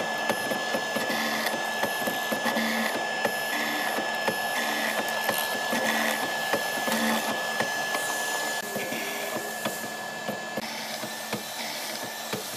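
Hollow-chisel mortiser running with a steady high whine while its square chisel bores into hardwood, with rapid ticking and crunching from the cut and repeated surges as the chisel plunges; the cutting eases and gets quieter about nine seconds in.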